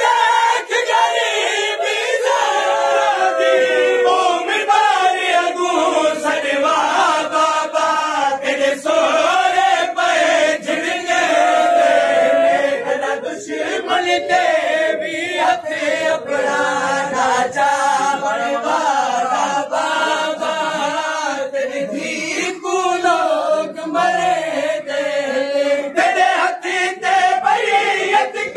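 Men's voices chanting a noha, a Shia lament, together without instruments, with sharp slaps of hands beating on chests (matam) cutting through it.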